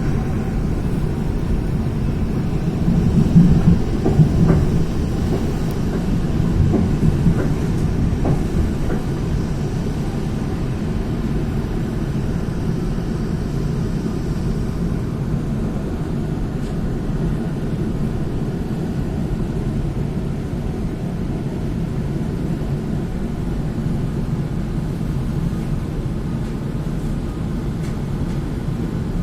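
Train running, a steady low rumble that swells a little about three to five seconds in, with a few faint clicks.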